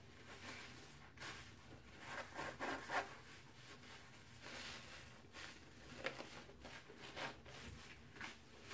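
Soap-soaked kitchen sponges with scouring-pad sides squeezed and rubbed together by hand in foamy suds: a string of irregular wet squishing and rubbing sounds.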